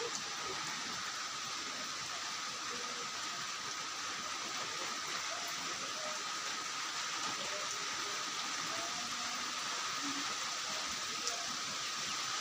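Steady rain falling during a typhoon, an even hiss with no let-up.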